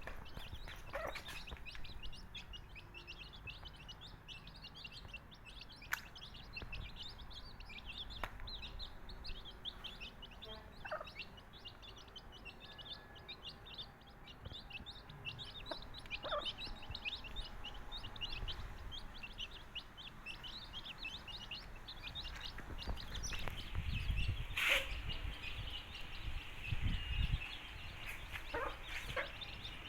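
A brood of native-breed baby chicks peeping continuously, many short high chirps overlapping, with an occasional lower cluck from the mother hen. Some low rumbling comes in near the end.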